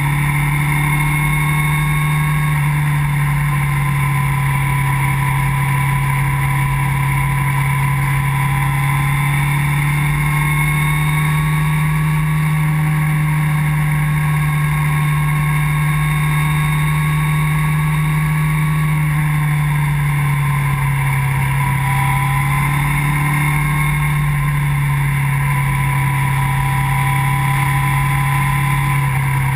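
Motorcycle engine running at a steady cruise, its pitch rising and falling gently with the throttle through the bends, over a rumble of wind on the microphone.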